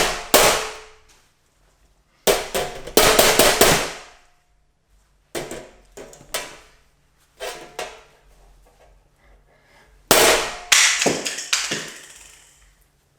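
Loud bangs and clangs of hard objects being struck, in clusters of quick blows: a burst right at the start, a rapid run of strikes around two to four seconds in, softer knocks around five to eight seconds, and another loud burst around ten to twelve seconds, with quiet gaps between.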